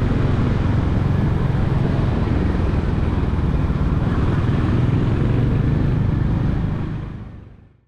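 Steady rumble of a motorcycle ride, engine and wind noise together, fading out near the end.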